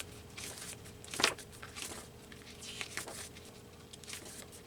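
Paper book pages being turned and handled: soft rustles, with one sharper page flip about a second in.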